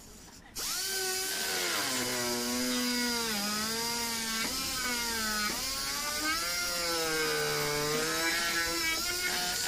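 Small handheld rotary tool grinding out a hole in a motorcycle's plastic body panel to enlarge it. Its motor whine starts about half a second in and wavers up and down in pitch as it cuts.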